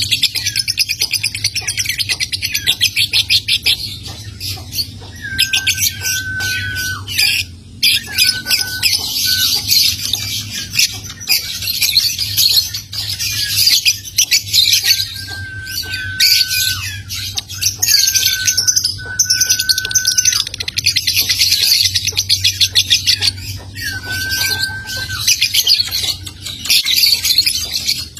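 Young lovebird giving its fast, continuous ticking chatter ('ngetik') running on into long cackling trills ('ngekek'), broken by about five level whistled notes of around a second each.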